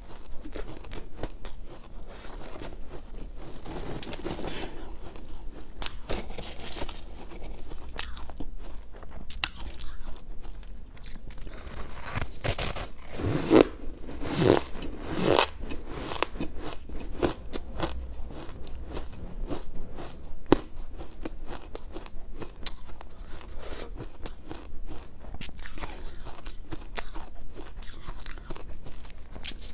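Someone biting and chewing ice or freezer frost: repeated crisp crunches and crackles, loudest in a cluster about halfway through.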